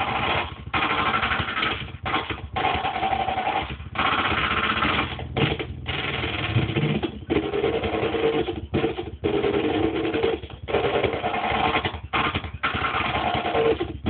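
Modular synthesizer playing a sampled drum loop from a sample-recorder module, harsh, dense and noisy. It is chopped into chunks with sudden short gaps every second or two, with a low pitch gliding upward about halfway through.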